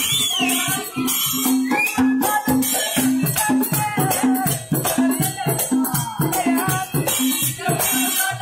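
Live Kerala folk percussion music: a rope-laced barrel drum beats a steady rhythm of about three strokes a second under jingling rattles and hand clapping, with a few short rising whistle-like glides.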